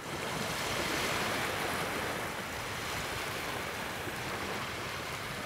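Steady rushing of waves, fading in at the very start.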